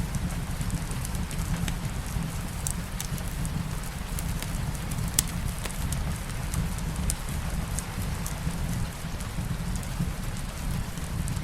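Steady rain mixed with a fireplace fire: an even rain hiss over a low rumble, with scattered sharp crackles and pops throughout.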